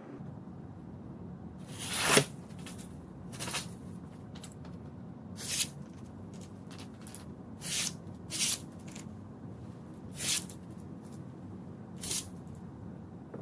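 A freshly sharpened boning knife slicing through thin printed paper, a short hiss with each cut, about seven cuts a second or two apart, the first the loudest. The clean slicing shows the edge after refining on finer stones.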